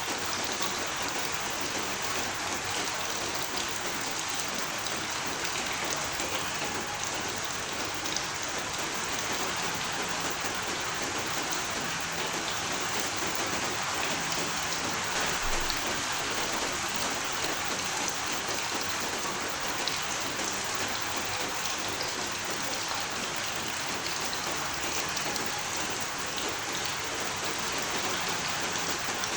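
Steady, even rain falling on a surface, a dense hiss with fine scattered drop ticks throughout.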